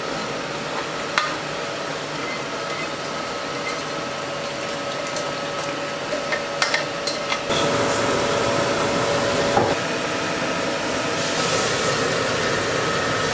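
Metal pots clinking a few times, then oily sauce being poured from one pot into another over a steady kitchen hum with a faint tone. The pour starts about seven and a half seconds in and is louder than the rest.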